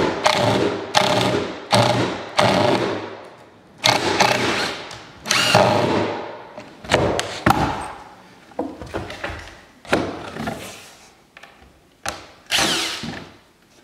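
Cordless drill driving screws into a plywood strip on a stair, in about a dozen short bursts of the motor that each start suddenly and wind down. The bursts come quickly at first, then with longer pauses and more weakly toward the end.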